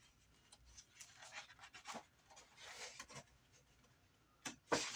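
Faint rustling and sliding of scrapbook paper sheets handled by hand as pages of a paper pad are turned over and smoothed down, with a couple of sharper paper clicks near the end.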